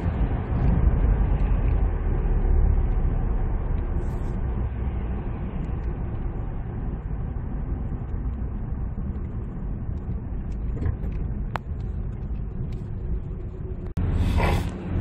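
Cabin noise of a diesel SUV on the move: a steady engine and tyre rumble, louder for the first few seconds as it pulls, then even. A single sharp tick comes about two-thirds of the way through.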